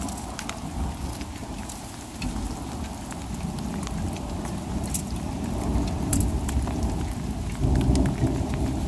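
Heavy rain falling steadily, with scattered sharp ticks, and a low thunder rumble that swells near the end.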